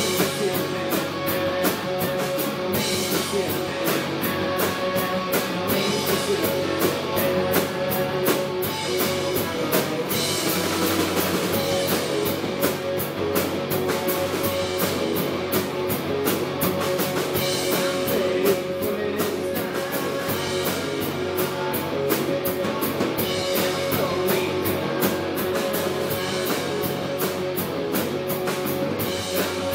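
Rock band playing live: distorted electric guitars, electric bass and drum kit, with sustained guitar notes held over a steady drum beat.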